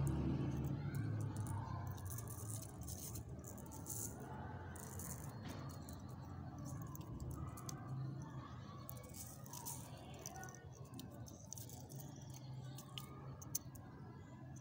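Dried snapdragon seed capsules rattling as the stem is shaken over paper: irregular dry ticks as the tiny seeds patter out onto the sheet.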